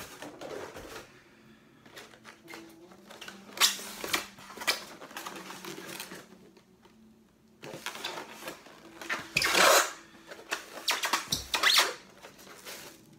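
Packaging of a boxed statue being handled and opened: irregular rustling, scraping and knocks, with the loudest bursts about four seconds in and again around ten to twelve seconds in.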